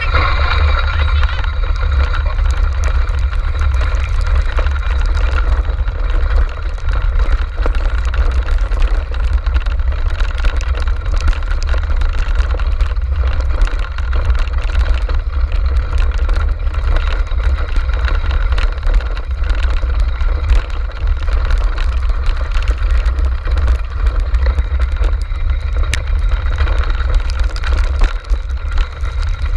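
Dryland dog cart rolling fast over a rough dirt trail behind a running dog team: a loud, steady low rumble and buffeting from the cart-mounted microphone, with constant small rattles and clicks from the wheels and frame.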